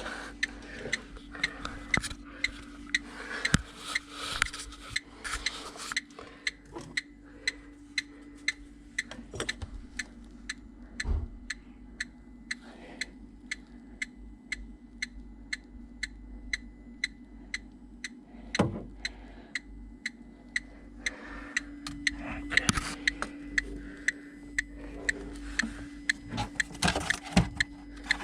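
Steady, even ticking, about two ticks a second, over a low steady hum, with rustling handling noise at the start and again near the end.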